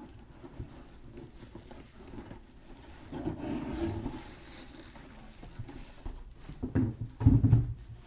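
Bubble wrap and packaging being handled and pulled off a boxed toy: rustling about three seconds in, then louder crinkling and bumps near the end.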